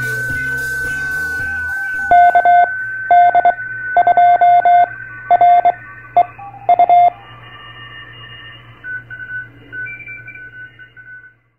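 Morse code (CW) tones: one steady pitch keyed on and off in short and long pulses for about five seconds, starting about two seconds in, over a steady high whistle. The intro music ends just before the Morse begins, and fainter tones come and go afterwards until the sound cuts off shortly before the end.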